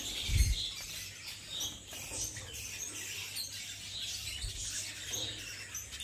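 A colony of caged lovebirds chirping, with many short high calls overlapping. A low thump comes about half a second in.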